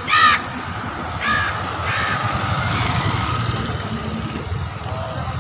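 A crow cawing: one loud harsh caw right at the start, then two fainter caws about a second and two seconds in, over a steady low rumble.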